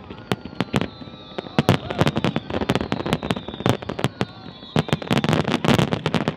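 Fireworks going off: a rapid, irregular run of sharp bangs and pops, several a second.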